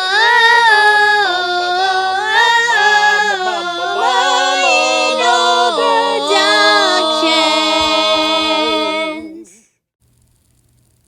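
Voices singing a cappella, with held notes and short glides between them, breaking off about nine and a half seconds in.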